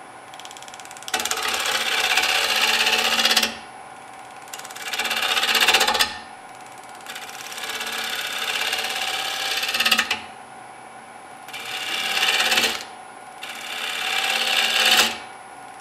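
Gouge cutting a spinning wooden bowl blank on a wood lathe: five cutting passes, each a second to about three seconds long, a rush of noise as shavings peel off, with the lathe's steady motor hum between them.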